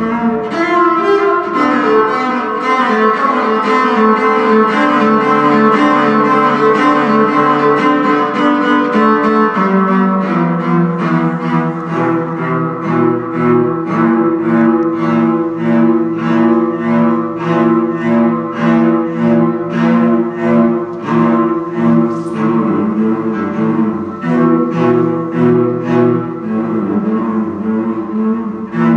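Solo cello played live: long sustained bowed notes at first, then from about ten seconds in a repeated rhythmic figure of short lower notes, about two a second.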